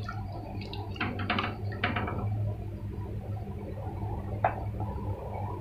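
A wooden spoon stirring chicken curry with freshly added coconut milk in a pot, knocking and scraping a few times in the first couple of seconds, with one more click later. A steady low hum runs underneath.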